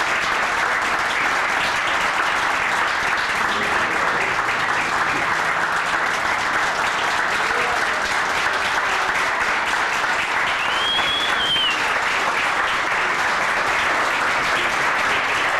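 Audience applauding, dense steady clapping from a large seated crowd, with one short high tone rising and falling about two-thirds of the way through.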